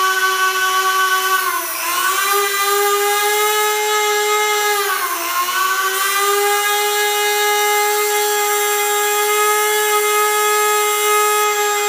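Dremel rotary tool spinning a dismantled washing-machine pump motor at high speed, giving a steady whine. Its pitch dips briefly twice and comes back up, then holds a little higher. The speed changes come as the high-voltage lead jumps a small spark gap to earth ground, which the builder says makes the RPM take off.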